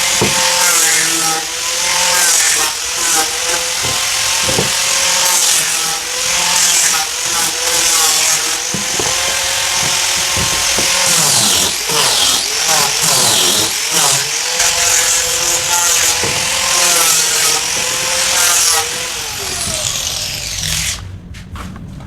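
Electric woodworking power tool running and cutting wood, its motor pitch wavering and dipping as it bites, over a harsh cutting hiss. Near the end the cutting stops and the motor winds down.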